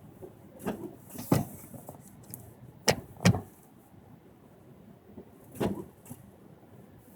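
A few irregular knocks and clunks, five in all, the two loudest about half a second apart near three seconds in.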